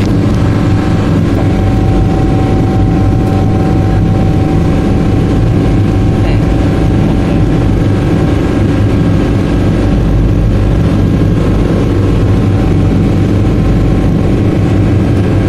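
Fishing boat's engine running steadily at an even pace, heard close up from on deck.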